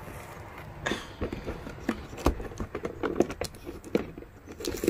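A cardboard box being worked open by hand: irregular taps, knocks and scraping of cardboard flaps.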